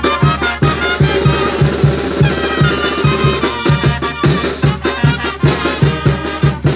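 Live Mexican banda brass band playing: trumpets, trombone and tuba over snare and bass drum, with a steady beat in the bass.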